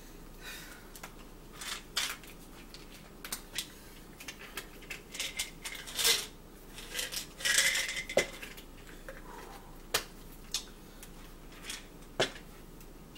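Mealtime handling sounds: a fork clicking and scraping in a plastic takeout tray, with plastic rustling and scattered light clicks and knocks.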